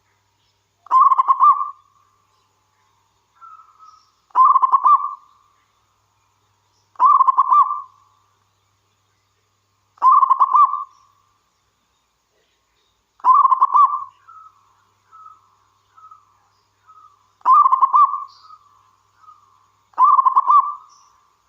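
Zebra dove (perkutut) singing: seven loud cooing phrases, each about a second long and roughly three seconds apart, with softer short coos between them in the second half.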